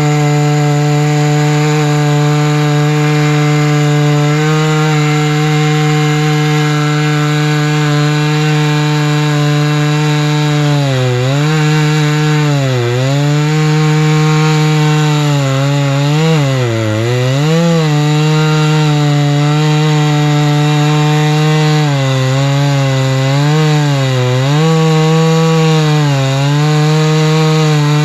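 Chainsaw mill ripping lengthwise through a tamarack log with a freshly reprofiled chain, the saw held near full throttle. Its pitch stays steady at first, then dips briefly and recovers several times over the second half.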